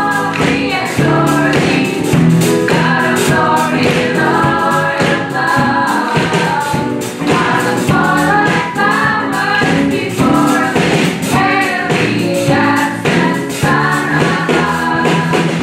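Youth choir singing an upbeat gospel-style song in several voices, with a steady beat under it.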